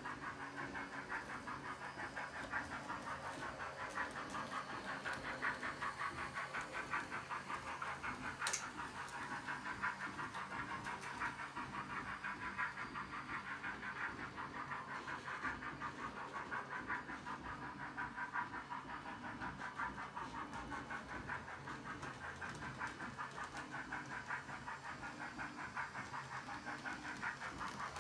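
Sound decoder of an H0-scale DB class 023 steam locomotive model playing steady steam chuffing in a quick, even rhythm through the model's small loudspeaker as it runs. A single sharp click about eight seconds in.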